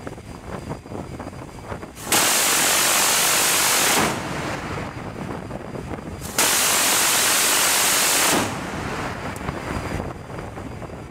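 Phalanx CIWS 20 mm six-barrel rotary cannon firing two bursts of about two seconds each, each a single continuous blast that starts and stops abruptly, about two seconds apart. Wind and sea noise on the microphone fill the gaps.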